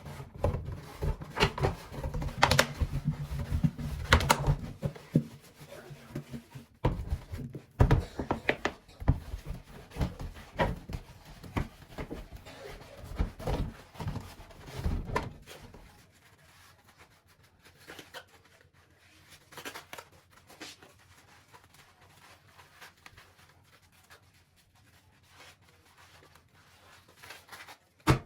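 Clatter of household items being handled and set down: a busy run of knocks and clicks, then only a few scattered clicks from about the middle on, and one sharp knock near the end.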